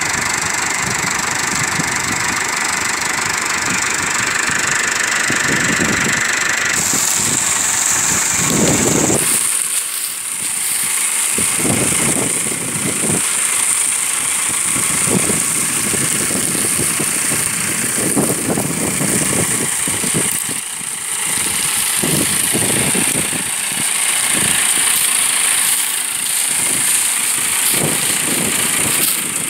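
Massey Ferguson 385 tractor's four-cylinder diesel engine running steadily.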